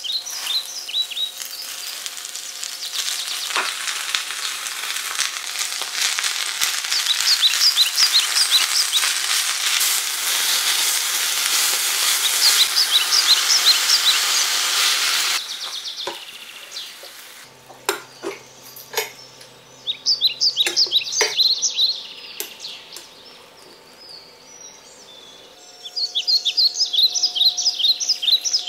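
Spinach leaves sizzling in a hot stainless-steel pan for about the first fifteen seconds, the hiss then cutting off abruptly. Birds chirp throughout in quick series of short high notes, loudest near the end.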